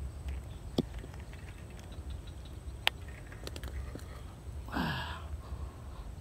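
A hooked snakehead flopping on dry ground, with two sharp taps about one and three seconds in and a few lighter ticks after. About five seconds in comes a breathy, falling grunt from the angler.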